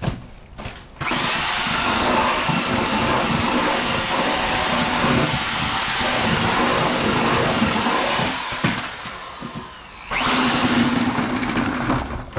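Handheld drill-driven paddle mixer churning stucco patch mix in a plastic bucket: it starts about a second in, runs steadily for about eight seconds and spins down, then runs again briefly for about two seconds near the end.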